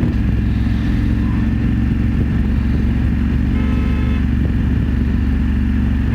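BMW F850GS parallel-twin motorcycle engine running steadily under way, with road and wind noise. A car horn sounds for about a second midway through.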